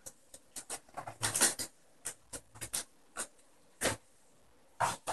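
Cardboard packaging being handled: a run of short, separate rustles and scrapes as the box and its inserts are moved and opened.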